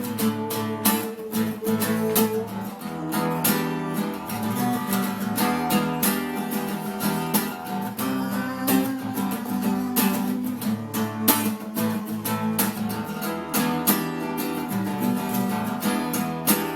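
Acoustic guitar music, strummed steadily in a regular rhythm.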